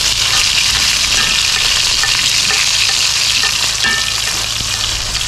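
A piece of fish frying in hot oil in a cast-iron skillet: a steady, even sizzle.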